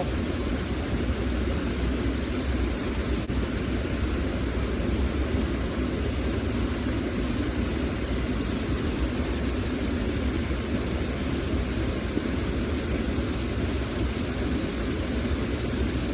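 Steady rushing of stream water, an even unbroken noise.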